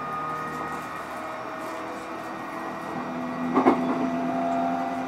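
E531 series EMU motor car running under way: steady whine from the VVVF inverter and traction motors over rumbling running noise, with the tones changing about three seconds in and a brief clatter just after.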